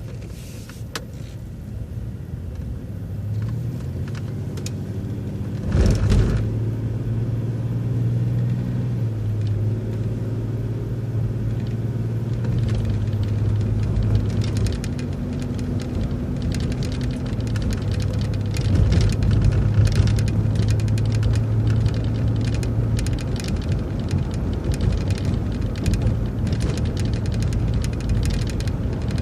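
City transit bus engine running under way, heard from on board: a steady low drone that builds over the first few seconds as the bus pulls out, with a single thump about six seconds in and light rattling later.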